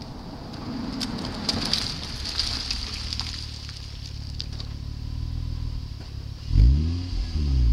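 2009 Honda Accord 3.5-litre V6 through a Vibrant Streetpower straight-through muffler, idling with a low steady hum, then revved sharply about six and a half seconds in, the pitch sweeping up and falling straight back.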